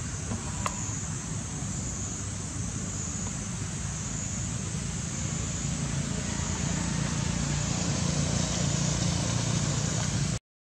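Steady outdoor background noise: a low rumble of distant road traffic that swells a little later on, under a steady high hiss. A single faint tick sounds about a second in, and the sound cuts out completely for a moment near the end.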